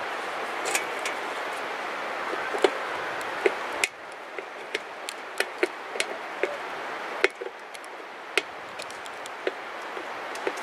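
Scattered light clicks and taps of a makeshift tool and metal grill parts being handled while trying to turn a Phillips screw without a screwdriver, over a steady background hiss that drops about 4 seconds in and returns about 7 seconds in.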